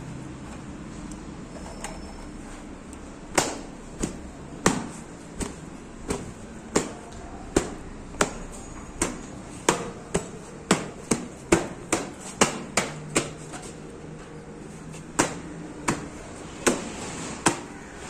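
A series of about twenty sharp knocks, like hammer blows, at uneven spacing over a faint steady hum. They start about three seconds in, come faster (two to three a second) in the middle, and pause briefly before a last few near the end.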